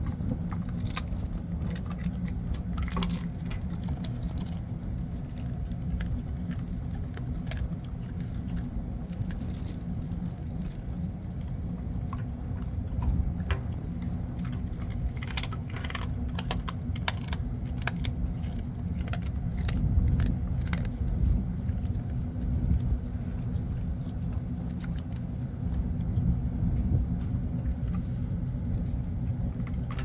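Steady low drone of a ship's engine. Over it, a dog chews and licks at a small scrap of food, making scattered sharp clicks and crunches that are busiest around the middle.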